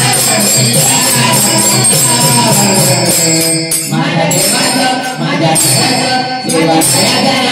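A man singing a song with a jingling tambourine-like percussion accompaniment.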